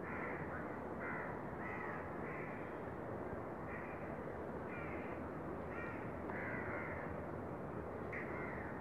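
Crows cawing repeatedly, one short call about every second, over a steady hiss.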